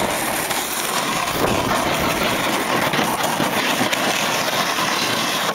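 Snowboard sliding and scraping over hard, icy snow while riding downhill: a loud, steady hiss.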